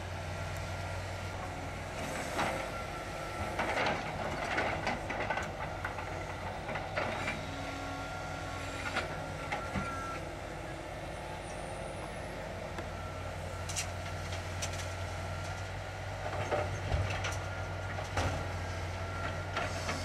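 A distant crane's diesel engine running steadily as it picks up demolition debris from a dry kiln and loads it onto a truck, with irregular clanks and knocks from the debris every second or two.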